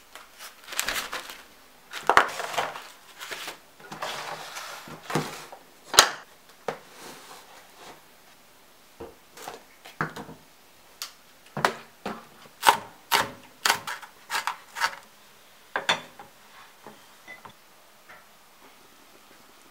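Plastic food packaging rustling for the first several seconds, then a string of sharp knocks and clatters as food items and dishes are set down on a wooden table, thinning out near the end.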